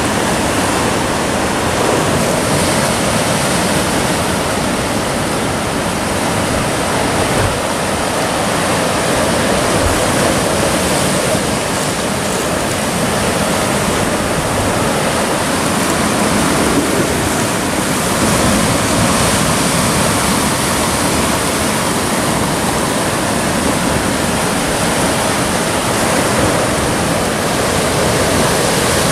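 Sea surf breaking and churning against rocks: a steady, loud rush of water with no let-up.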